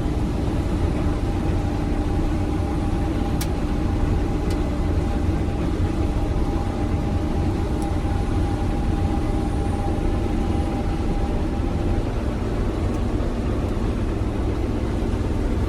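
Case IH 8010 combine running, heard from inside the cab: a steady low drone with a steady whine over it. Two light clicks come about three and four and a half seconds in.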